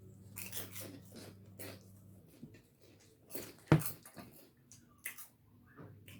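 Sips and small mouth noises as lime juice is taken, with one sharp knock, the loudest sound, a little over halfway through.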